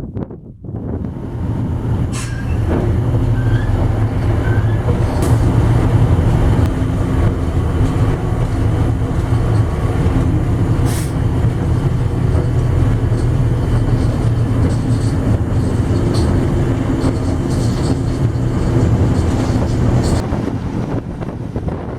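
Train running on the heritage railway line: a steady low rumble that rises about a second in, with several sharp clicks and clanks scattered through it.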